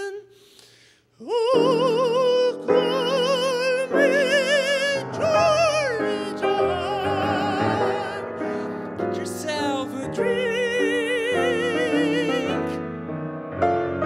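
Solo singer in an operatic style with wide vibrato, accompanied by grand piano chords. After a pause of about a second at the start, the voice comes back in on an upward slide. Near the end the voice drops out for a moment while the piano plays on.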